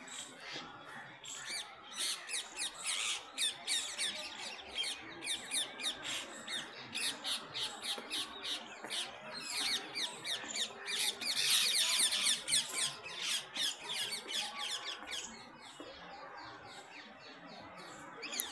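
A flock of birds calling: a dense stream of rapid, high chirps, each a quick downward slide, busiest about two-thirds of the way through and thinning out near the end.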